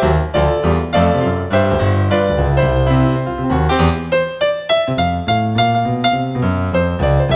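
Background piano music: a gentle melody of struck notes over sustained low chords, about two or three notes a second.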